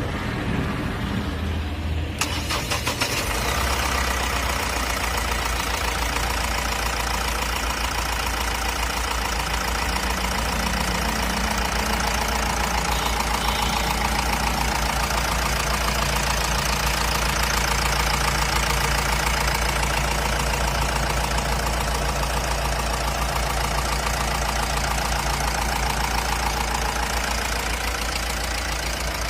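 Mahindra Bolero Pickup's diesel engine idling steadily with a rapid, even clatter. About two seconds in, the sound suddenly becomes fuller and brighter.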